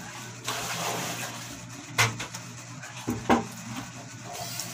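Eating at a table: a stretch of mouth noise, then a few sharp clicks and knocks of forks against plates and bowls, the loudest about three seconds in.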